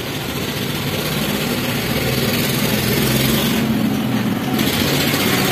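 An engine running steadily, its low hum growing slowly louder.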